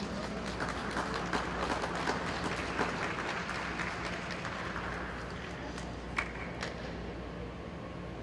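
Scattered applause from a small crowd of spectators welcoming a skater, thinning out over about five seconds, over a steady low hum. A single sharp click sounds about six seconds in.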